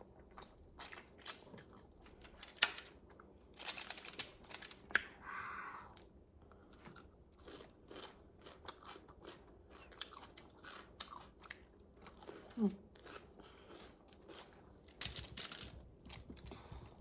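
Close-up chewing of spicy instant noodles with egg and sausage: irregular wet mouth clicks and smacks, with a few longer noisy stretches.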